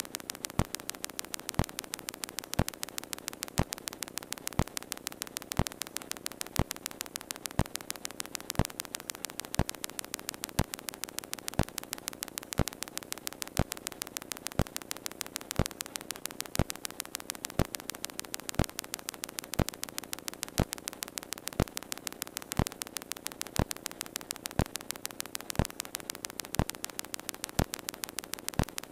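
Steady electrical hum and static with a fast, even ticking and a louder click about once a second: electrical interference on the recording, with the truck's engine dead and silent.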